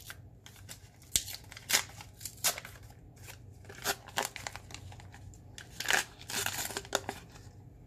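A trading card pack's wrapper being torn open and crinkled by hand, in irregular crackles and rustles with a few sharper snaps.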